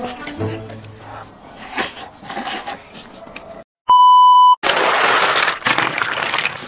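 A single steady, loud beep of under a second: the TV test-card tone that goes with colour bars, coming right after a brief dead silence. It is followed by a couple of seconds of hissing noise.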